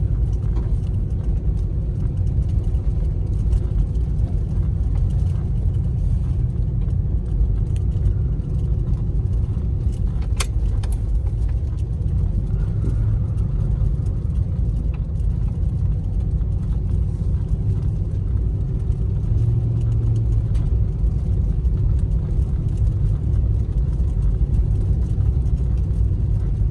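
Car driving on a bumpy campground road, heard from inside the cabin: a steady low rumble of engine and tyres, with a few short sharp clicks or rattles, the clearest about ten seconds in.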